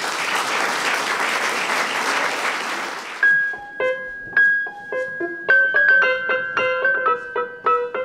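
Audience applauding, cut off about three seconds in by piano music: a high held note, then a run of single struck notes.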